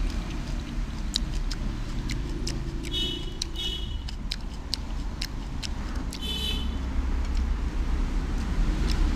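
Steady low rumble of road traffic, with scattered sharp clicks and three short high-pitched trills about three, three and a half and six and a half seconds in.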